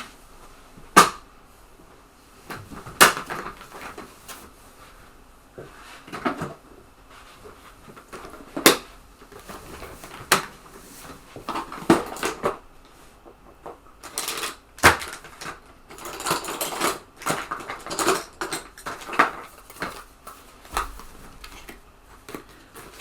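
Hands working on a TEAC FD-235F floppy drive's mechanism: scattered sharp clicks and small knocks, with a busier run of clicking and rattling in the second half.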